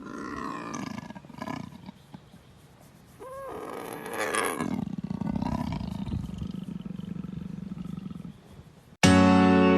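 An animal calling over a noisy background, with one short cry that rises and falls about three seconds in. About nine seconds in, loud guitar music cuts in suddenly.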